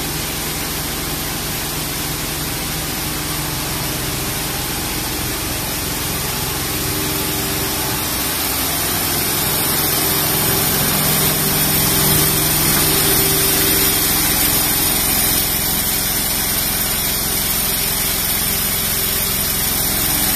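Richpeace L1500 high-speed multi-needle quilting machine running, a steady loud mechanical noise with a low hum that grows louder about halfway through.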